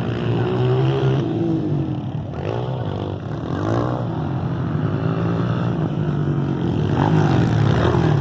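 Several motocross motorcycle engines running and revving, their pitch rising and falling and overlapping.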